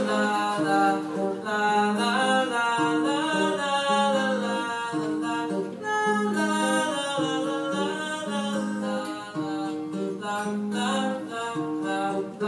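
Male singer with acoustic guitar performing live, singing a wordless melody over the guitar. The music stops right at the end.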